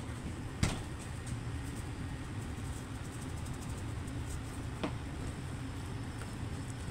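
Red silicone spatula stirring shredded chicken filling in a stainless steel bowl, with sharp clicks against the bowl about a second in and again near five seconds, over a steady low rumble.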